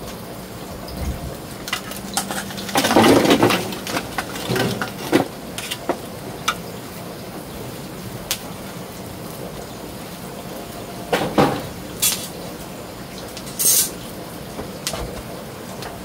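Split eel fillets sizzling on a wire mesh grill over glowing charcoal, a steady hiss with scattered pops and crackles. A few louder clinks and clatters come about three seconds in, again around eleven seconds and near fourteen seconds.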